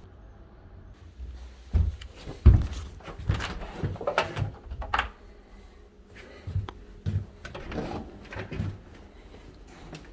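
Footsteps and the knocks of a door being handled: a run of irregular thumps, the loudest about two and a half seconds in.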